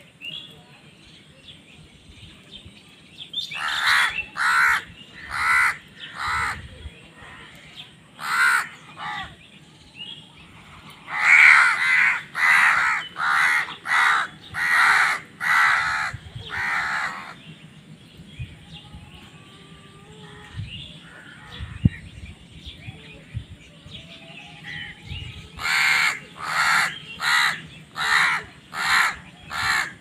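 House crows cawing in runs of harsh, evenly spaced caws, a bit more than one a second. There is a run of about five a few seconds in, a longer run of about seven near the middle and another of about six near the end, with fainter calls in between.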